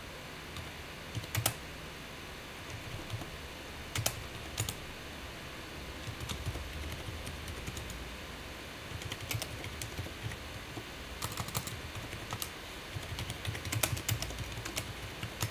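Typing on a computer keyboard: short, irregular bursts of keystroke clicks with pauses between them, as commands are entered at a terminal.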